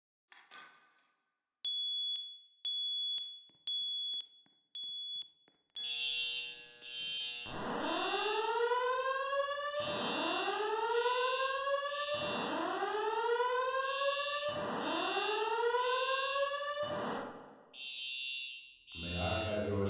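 Voice-evacuation fire alarm system sounding in a test. After a click come four short high beeps about a second apart, then a repeating rising whoop tone, four sweeps a little over two seconds apart, with a fast high pulsing tone over it. Near the end the whoops stop and only high pulsing tones continue.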